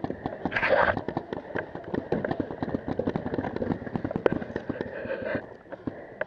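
Rapid popping of paintball markers firing, several shots a second, with a louder burst of noise about half a second in; the shooting eases off near the end.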